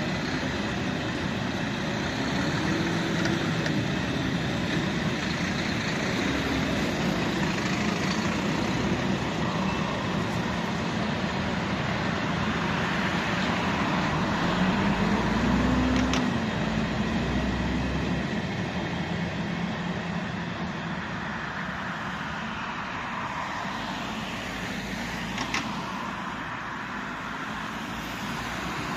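Freight train hauled by an ET22 electric locomotive running through a station, a steady rumble of wheels on the rails. Two sharp clanks come through it, one just past halfway and one later, and the rumble slowly eases in the last third.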